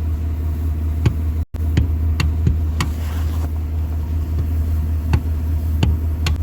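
Mitsubishi Pajero III drivetrain running with a steady low hum and irregular sharp knocks. The owner suspects the knock comes from the rear differential or a rear driveshaft.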